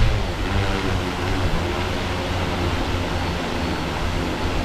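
Hexacopter drone's six propellers on HobbyWing XRotor X6 brushless motors whirring steadily with a low hum as the drone hovers.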